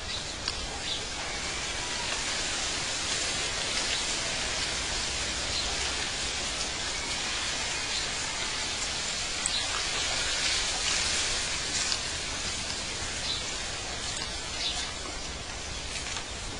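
Steady outdoor nature ambience: an even hiss with a few short, faint high chirps now and then, like distant birds.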